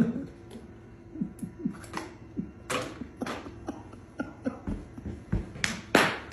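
Small plastic pet-food bag crinkling and rustling in short crackles as a cat noses and pushes it around, with light scattered taps; the loudest crackles come about three seconds in and again near the end.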